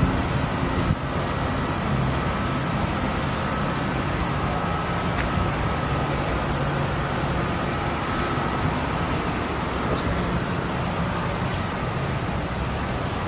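Hilti TE 3000-AVR electric demolition breaker hammer running continuously, a steady loud mechanical noise.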